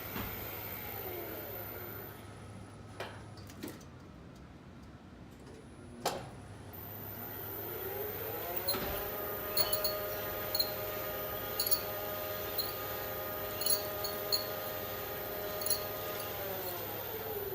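Lift machinery: a few clicks and a sharp clunk, then the drive motor's whine rises in pitch as the car starts moving, holds steady with scattered ticks, and winds down near the end. The brake is noisy, mostly as the up move begins.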